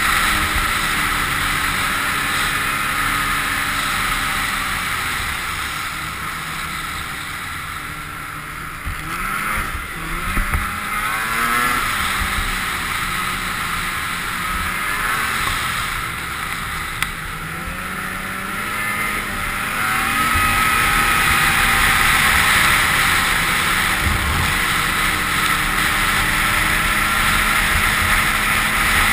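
Polaris two-stroke snowmobile engine running at trail speed, heard from the rider's seat along with track and wind noise. The engine eases off about eight seconds in, revs back up with rising pitch around ten to twelve seconds, and runs louder from about twenty seconds.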